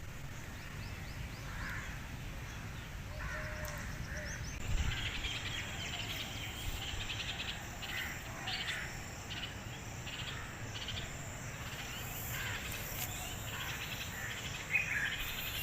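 Birds chirping and calling in short, scattered bursts over a steady high insect drone.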